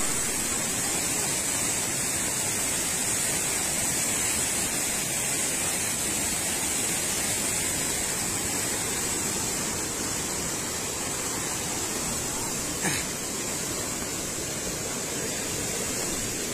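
Muddy floodwater rushing and churning in a fast, turbulent torrent, a steady even rush of water. A single brief click about thirteen seconds in.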